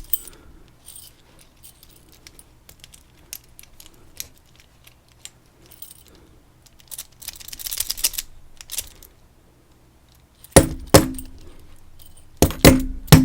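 A dimple lock and its keys being handled: small metal clicks and a brief jingle of keys, then five sharp metal knocks with a short ring near the end, in a group of two and then a group of three.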